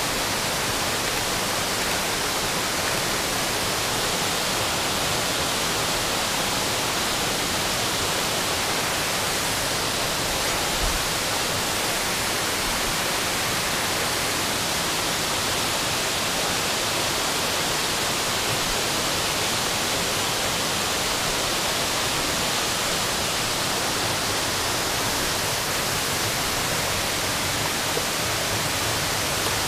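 Steady, unbroken rush of creek water cascading over rock.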